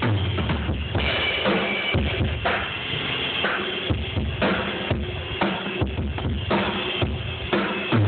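Live drum kit played through a JBL VerTec line-array PA in an outdoor sound check: bass drum hits in a steady beat, about once a second, with snare and cymbals over them.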